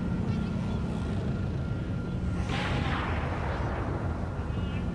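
Sci-fi desert-town ambience: a steady low rumble, with a sudden whoosh about two and a half seconds in that falls in pitch and fades over about a second and a half, like a ship passing overhead.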